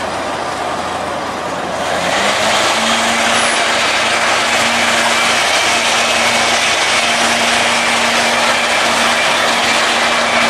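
Flexity Outlook streetcar running slowly toward the listener: a broad rush of wheels and running gear with a steady low hum from its electrical equipment. The sound gets louder about two seconds in.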